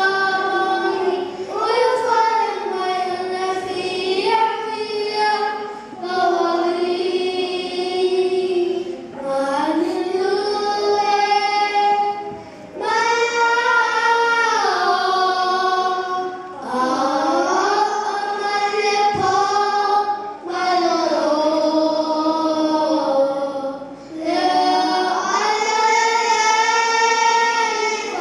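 Children singing a song together into handheld microphones, in held phrases a few seconds long with short breaks for breath between them.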